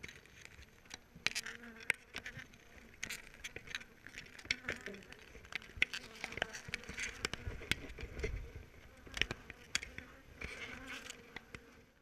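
Honeybees buzzing around an open hive, a low steady hum, with frequent sharp clicks and taps.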